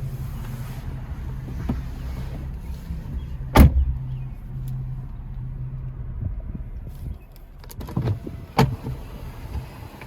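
Jeep Wrangler with a steady low running hum that fades out about seven seconds in. There is a sharp knock about three and a half seconds in, then a few smaller knocks and a second sharp knock near the end.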